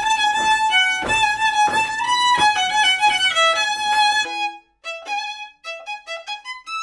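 Solo violin playing a fast, loud melody over regular thumps about every two-thirds of a second. After an abrupt cut about four seconds in, the violin plays short, separate notes with brief silences between them.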